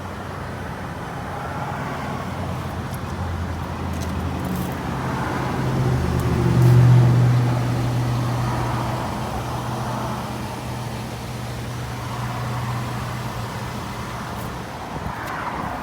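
A motor vehicle's engine running, a low hum that swells to its loudest about halfway through and then slowly fades.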